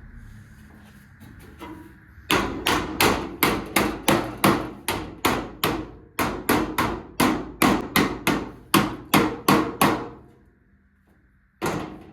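Hammer blows on car-body sheet metal: a steady run of about twenty sharp strikes, roughly two and a half a second, then a pause and one more blow near the end.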